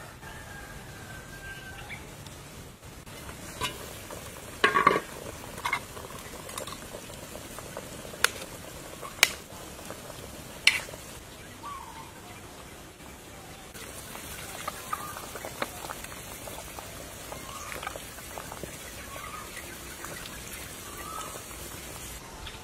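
Several sharp clinks of metal utensils against pots and dishes while soup is served, over a steady hiss, with a few short chirps.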